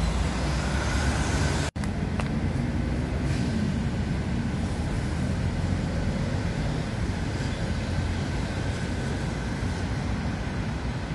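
Steady low rumble of city street traffic, which cuts out for an instant about two seconds in.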